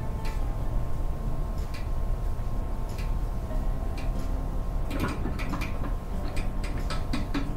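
Hand-cranked vertical sausage stuffer being worked: scattered clicks and knocks from the crank and piston, sparse at first and coming thick and fast from about five seconds in, over a steady low hum.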